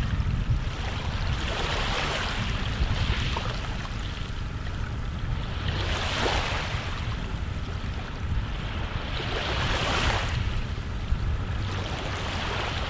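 Ocean surf washing in, swelling and fading about every four seconds, over a steady low wind rumble.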